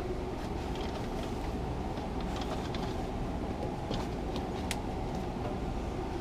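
Steady low rumble with a few light clicks and taps as a hand moves the curtains and brushes the wooden window trim.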